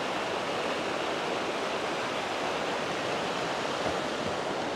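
Steady rushing noise of moving water, even and unbroken, with no surges or pauses.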